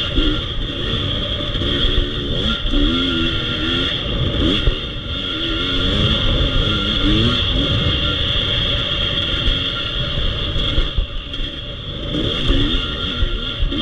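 Dirt bike engine revving up and down while it is ridden on a motocross track, its pitch rising and falling every second or so. A steady high whine runs alongside it.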